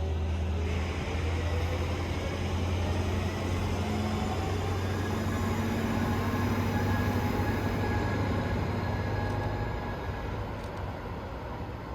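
Brightline passenger train with a Siemens Charger diesel-electric locomotive pulling away: a steady low engine drone with tones rising in pitch, easing off near the end.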